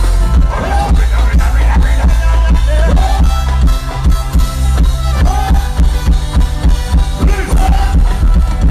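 Loud band music through a PA system during a sound check, with heavy bass and a drum kit keeping a steady beat.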